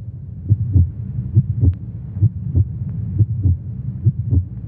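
Heartbeat sound effect: paired low thumps (lub-dub) repeating evenly about once a second over a low steady drone.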